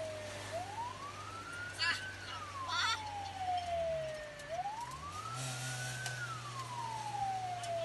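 Fire truck siren on a slow wail, each cycle rising quickly for about a second and a half, then falling slowly over about two and a half seconds. It is heard from inside the cab over the steady hum of the truck's engine, whose note shifts about halfway through.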